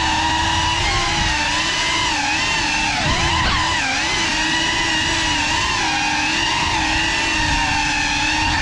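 GEPRC CineLog35 cinewhoop drone's motors and ducted propellers whining steadily, the pitch rising and falling with throttle and dipping briefly about three seconds in.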